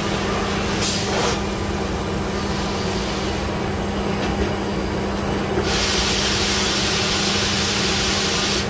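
Mazak Variaxis i-700 5-axis CNC machining center running with a steady hum. A short hiss comes about a second in, and a louder steady hiss, like spray, sets in about six seconds in.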